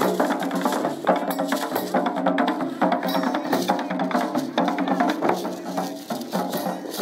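Taiko drum ensemble playing: a fast, unbroken run of wooden sticks striking the big barrel drums, dense overlapping hits with sharp clicks on top.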